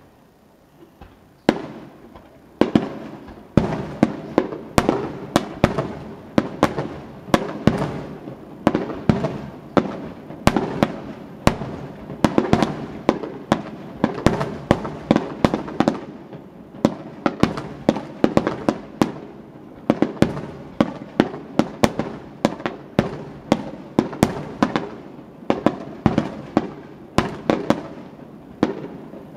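Aerial fireworks bursting in a rapid barrage, several bangs a second with crackling between them. The barrage starts about a second and a half in, after a quieter moment.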